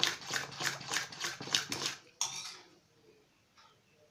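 Steel spoon beating thin jalebi batter in a stainless steel bowl, scraping the bowl in quick, even strokes about four a second to whip it fluffy. The strokes stop about two seconds in, with one last scrape after, then only faint clicks.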